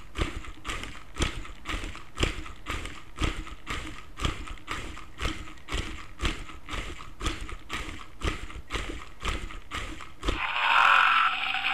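Motorised wooden stegosaurus kit walking on a laminate floor: its wooden feet and gears knock in a steady clatter of about three knocks a second. Near the end the walking stops and a louder rasping sound of about two seconds takes over, the toy's electronic roar from its built-in speaker.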